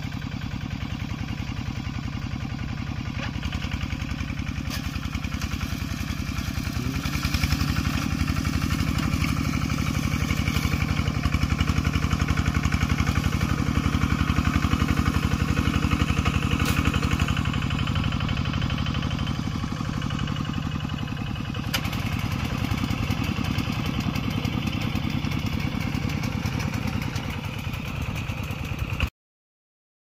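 Walking tractor engine running steadily as it pulls a fertilizer spreader across a rice paddy, with a fast, even pulsing beat. It grows louder from about a quarter of the way in, eases back a little past the middle, and cuts off abruptly near the end.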